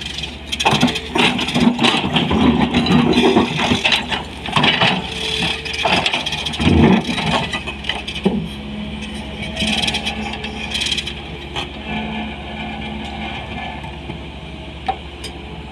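SANY 220 crawler excavator's diesel engine running under load while its steel bucket digs and scrapes into rocky ground, with repeated clattering knocks of stone against the bucket. After about eleven seconds the knocks stop and the engine runs on more steadily.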